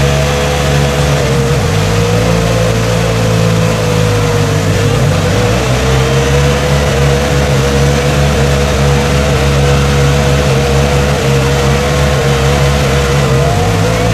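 Side-by-side UTV engine running hard at a nearly steady pitch while its tires spin in deep mud, throwing mud.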